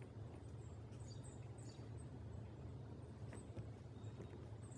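Faint outdoor ambience: small birds chirping with short, high calls over a steady low rumble, with a couple of faint clicks.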